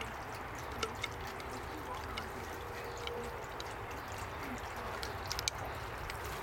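Steady quiet background noise with a few light clicks and taps as the metal hose coupling and a screwdriver are handled and set down on a plastic table.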